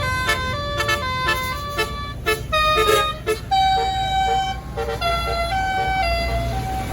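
A tour bus's Basuri telolet horn, a multi-tone air horn, playing a melody: a quick run of short notes, then slower, longer held notes from about halfway through. A low engine rumble lies underneath.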